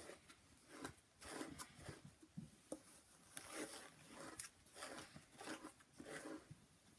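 Long hair being brushed: a run of faint strokes through the hair, roughly one every half second, a few with a sharp click.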